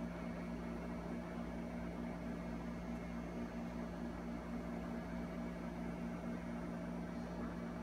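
Steady room tone: a constant low hum with a few held tones over an even hiss, with no distinct sounds standing out.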